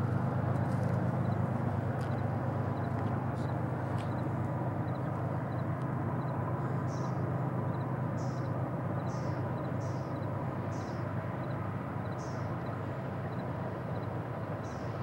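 A steady low rumble that eases slightly. From about the middle on, a bird gives short high chirps roughly once a second.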